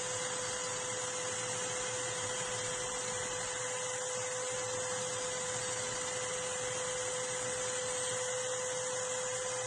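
Hitachi electric drill running at a steady speed, spinning a drill-mounted grinding stone while a lawn mower blade is held against it to sharpen the edge. It gives a steady whine over an even grinding hiss.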